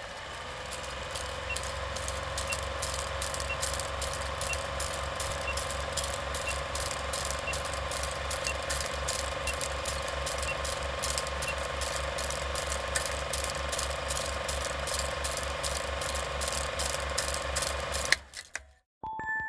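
Old film projector running: a steady hum with rapid, evenly spaced clicking from the film mechanism, which stops suddenly with a click near the end.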